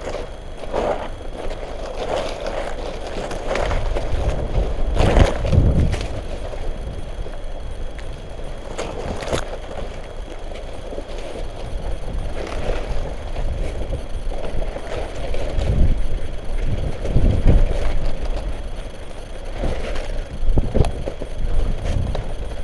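Footsteps and rustling through dry sunflower stalks and dead leaves, with irregular crackles as brittle stalks and leaves are pushed aside and stepped on. A low rumble on the microphone comes and goes.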